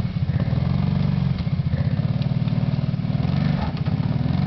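Kawasaki Brute Force 750 ATV's V-twin engine running steadily with a low, even firing pulse, its pitch shifting slightly a couple of times.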